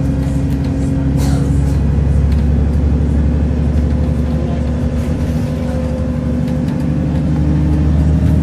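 Cabin sound of a VDL double-decker bus under way: its diesel engine and Voith automatic gearbox run in a steady drone whose pitch shifts a little as the road speed changes, with a short rattle of the body about a second in.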